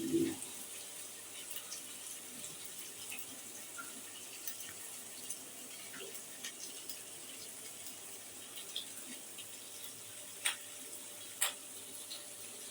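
Ginger paste frying in mustard oil in a kadai: a steady, soft sizzle with scattered small crackles and two sharper ticks near the end.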